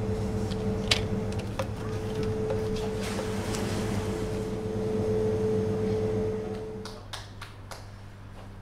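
Steady hum of kitchen machinery with a held mid-pitched tone and a few light clicks and taps. The tone stops about seven seconds in, leaving a quieter low hum and a few more clicks.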